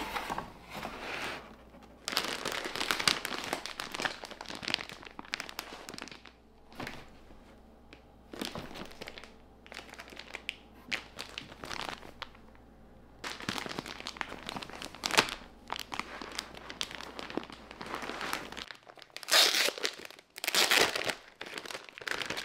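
Unboxing sounds: plastic-wrapped bedding packages crinkling and rustling as they are handled, with a cardboard box being opened and its flaps moved, in irregular bursts with short pauses.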